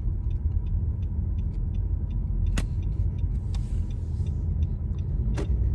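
Steady low road and engine rumble inside a car's cabin as it drives slowly, with two sharp clicks partway through.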